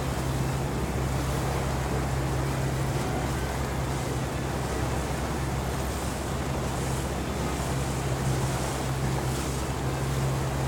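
Boat engine running with a steady low drone, under the rush of wind and water.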